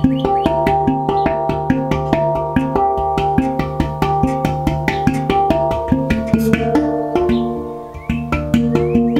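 Handpan played with the hands: a quick, even run of struck steel notes that ring on into one another over a low sustained note. Near the end the tapping pauses for about a second and the notes die away, then the rhythm picks up again.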